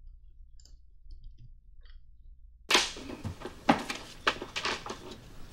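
A few faint clicks in a quiet room. Then, about two and a half seconds in, the sitcom clip's soundtrack starts playing through the computer: a sudden, dense, noisy sound with sharp cracks through it.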